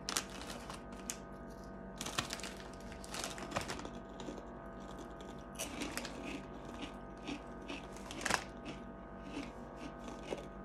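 Chewing and crunching of Doritos 3D Crunch corn snacks, with crinkles from the foil chip bag: scattered short crunches and rustles over a faint steady hum.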